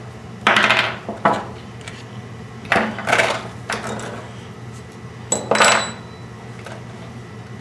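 Small brass pipe fittings and metal parts clinking and being set down on a workbench in several short clattering spells, one about five seconds in giving a brief high metallic ring.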